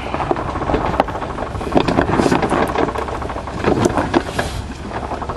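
Lawn tractor being pushed by hand with its engine off: the wheels rolling over rough ground and the body rattling, with many clicks and knocks.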